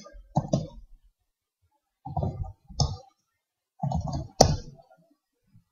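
Typing on a laptop keyboard: a few short runs of keystrokes with pauses between them, and one sharper, louder key click about four and a half seconds in.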